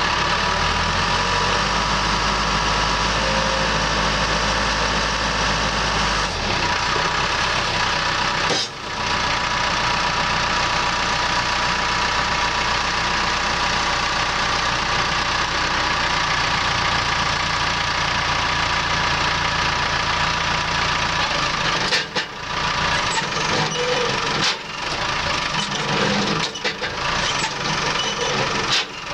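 Case skip loader's diesel engine running steadily while the loader arms and rear box blade are worked on the hydraulics. Its low drone changes about six seconds in, and the sound dips briefly a few times near the end.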